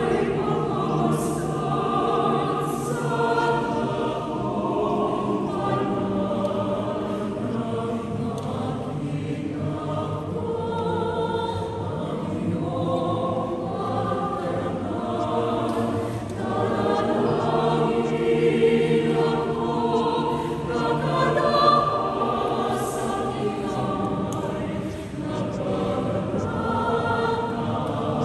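A choir singing in several parts, holding long notes.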